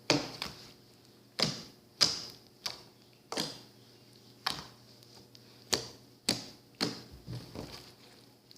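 Slime being squeezed and poked close to the microphone, giving about ten sharp, irregular pops and clicks as air pockets burst, with the last ones coming close together near the end.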